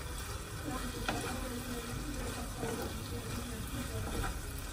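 Eggplant curry sizzling in a nonstick frying pan as it is stirred with a wooden spatula, with a couple of sharp taps of the spatula against the pan.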